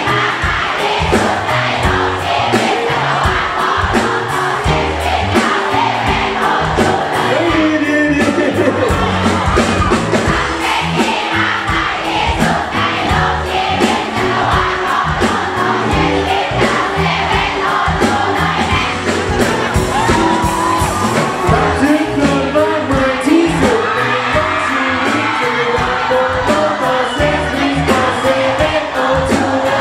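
Live band playing a pop song loud, with a steady drum beat and a lead singer, and crowd voices singing and cheering along.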